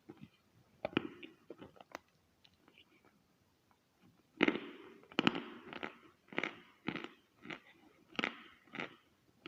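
Chalk being bitten and chewed close to the microphone: a few dry, crisp crunches in the first two seconds, a short pause, then steady crunchy chewing from about four and a half seconds in.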